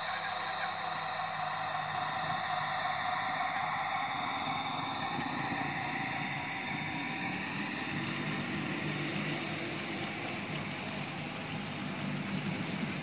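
Sound decoder in a Roco model of an SNCF CC 72000 diesel locomotive playing a diesel engine running sound through its small speaker as the locomotive passes and moves away. From about four seconds in, the low rolling rumble of the model tank wagons running over the rails grows louder.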